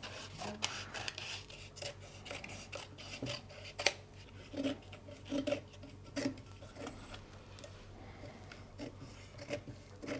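A knife blade cutting and trimming thin gasket paper fitted on a metal saildrive housing: quiet scraping and rubbing of paper, with many small clicks and a few firmer taps from handling the parts, most of them between about four and six and a half seconds in.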